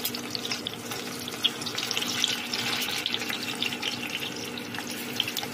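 Stuffed bitter gourds sizzling and crackling in hot oil in a steel kadhai, with a steady hum underneath.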